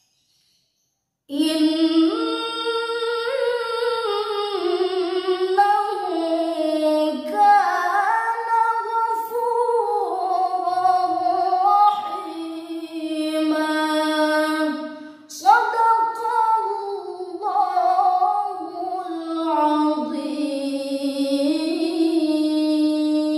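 A woman reciting the Qur'an alone in a melodic chanted style, with no accompaniment. It starts after about a second of near silence and runs in long held phrases that bend in pitch, with a short pause for breath about two thirds of the way through.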